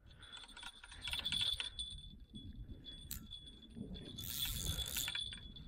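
Faint metallic clicking and jingling from carp-fishing tackle while a hooked carp is played on a rod and spinning reel. There is a short hiss about four seconds in.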